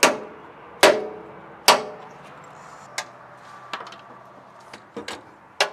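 Three sharp metal strikes on the generator's sheet-steel cabinet, about a second apart, each ringing briefly. Lighter clicks and taps of metal being handled follow.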